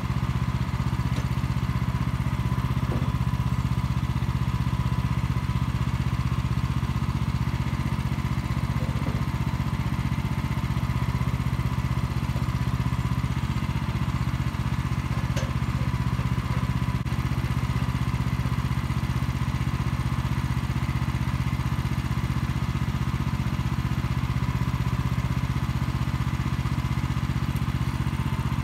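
WoodMaxx portable band sawmill's engine running steadily at a constant speed.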